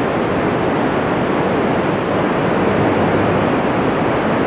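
Steady, loud rushing static from a two-metre FM radio receiver, the hiss of an open channel carrying no voice between overs, which switches on abruptly.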